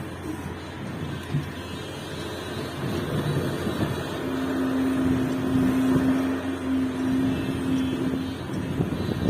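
Hidromek HMK 370 LC excavator's diesel engine running steadily while it works, getting louder about three seconds in. A steady hum is held for about four seconds near the middle.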